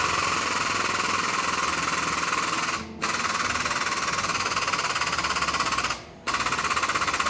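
A pneumatic shop tool rattling rapidly and loudly, stopping briefly about three seconds in and again about six seconds in.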